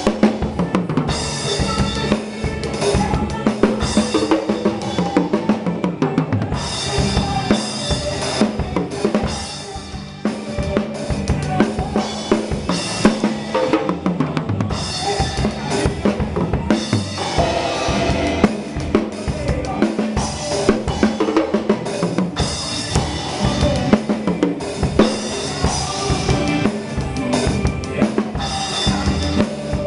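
Instrumental passage of a forró gospel song with no singing, a drum kit prominent: bass drum and snare driving a busy beat with rimshots. The music dips briefly about ten seconds in.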